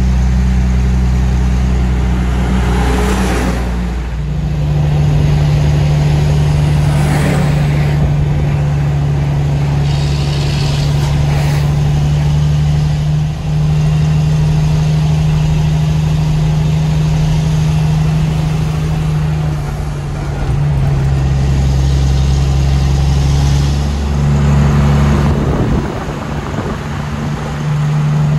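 Kenworth truck's diesel engine pulling uphill, heard from inside the cab: a steady low drone whose pitch steps up and down several times, with a few brief rushes of noise over it.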